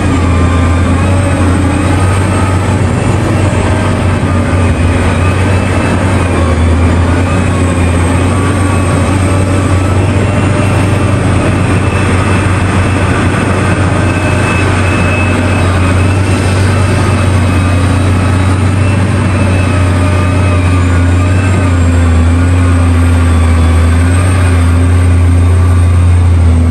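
Heavy diesel mining machinery running steadily at a mine: a deep, constant engine drone with steady overtones from the excavator and haul trucks at work.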